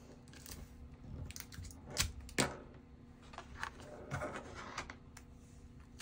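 Kraft-paper album pages and small craft magnets being handled on a cutting mat: light paper rustling with a scatter of short sharp clicks, the loudest two close together about two seconds in.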